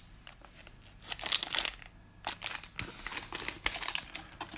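Thin clear plastic bag holding Pokémon TCG dice crinkling as it is handled, in short spells of crackly clicks.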